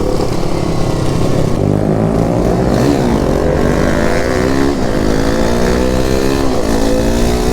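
Sport motorcycle engines accelerating hard in a street race, the pitch climbing and dropping back about three times as the rider shifts up through the gears.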